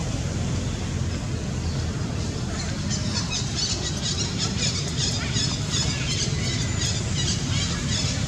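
Baby macaque squealing in rapid, short, high-pitched cries that start about three seconds in, over a steady low rumble.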